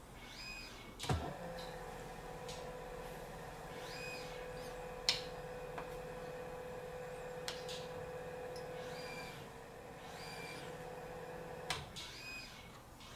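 FASTECH Ezi-SPEED BLDC motor switched on with a click and running with a steady hum of even pitch, with two sharp clicks of the controller's buttons partway through. Near the end another click switches it to stand-by and the hum stops.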